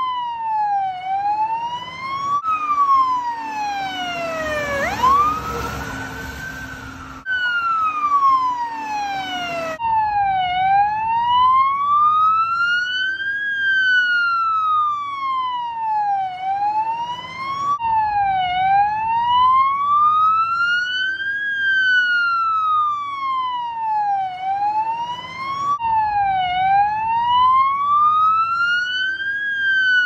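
New Zealand fire engine siren on a slow wail, its pitch rising and falling smoothly about every six seconds, broken by abrupt cuts between stretches. About five seconds in, a second siren tone sweeps sharply upward over a vehicle engine's rumble.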